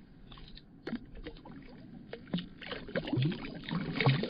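Water splashing and sloshing as a mullet is lowered into the water and kicks free, with irregular splashes that come thicker in the second half.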